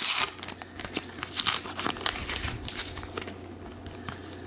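Trading-card packaging crinkling and tearing open by hand, with the loudest crackle right at the start, then scattered lighter crackles and rustling.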